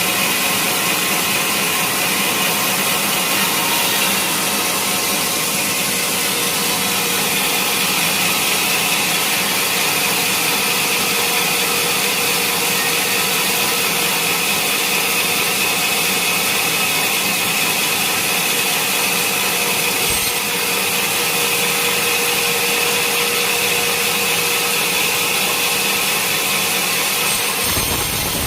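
A sawmill saw cutting through a large teak log, running steadily with a high whine over a continuous rasp. The sound shifts just before the end.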